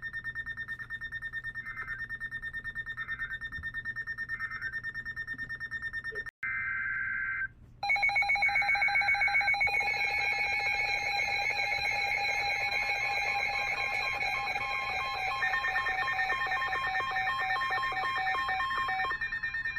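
Weather radio receivers alerting. A rapidly pulsing electronic alarm beep is joined by short tone chirps. About six seconds in comes a one-second burst of two-tone SAME digital data, then from about eight seconds several radios' alarm beeps sound together at different pitches, rapid and steady.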